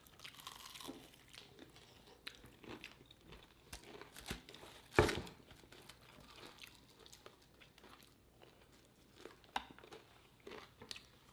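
Someone eating crispy fried chicken: chewing and biting, with scattered crunches and one loud crunch about five seconds in.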